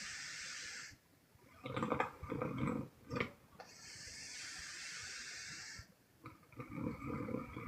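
A sleeping woman snoring. A long airy hiss of breath ends about a second in. A rough, rattling snore follows, then another long airy breath, then a second rough snore near the end, in a slow, even sleep rhythm.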